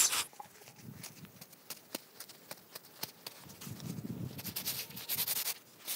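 Soft rustling and light taps as an oiled lavash flatbread is folded and rubbed between the hands on a wooden cutting board. The rustling grows a little louder near the end.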